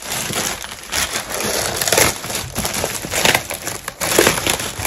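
A handbag's see-through plastic bag and tissue-paper wrapping crinkling and crunching as they are handled, in irregular bursts with louder crunches about once a second.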